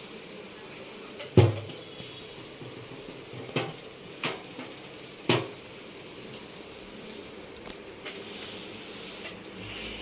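Hard objects knocking and clattering: four sharp knocks, the first about a second and a half in and the loudest, with a few fainter ticks between them.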